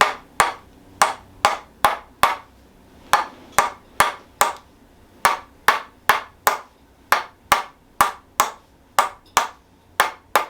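Tok sen therapy: a wooden hammer taps a wooden wedge held over the sacroiliac joint, giving sharp woody knocks at about two a second with a couple of brief pauses.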